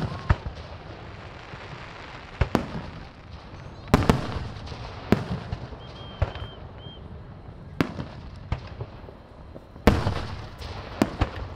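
Aerial fireworks exploding: sharp bangs every second or so, some in quick pairs. The loudest come about four seconds in and near ten seconds, each trailing off in an echo.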